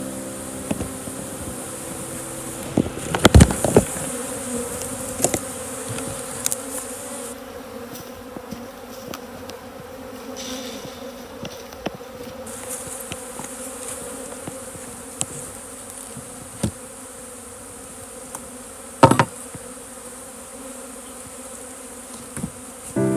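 Honeybees buzzing steadily around an opened hive, with occasional sharp knocks and clicks; the loudest knocks come about three seconds in and again near the end.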